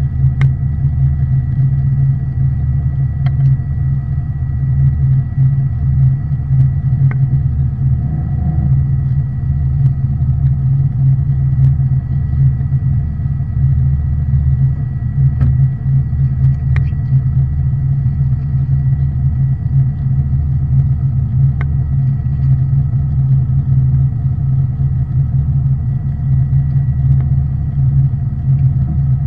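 Fishing boat's engine running steadily with a low, even rumble and a thin steady whine above it, with a few faint clicks.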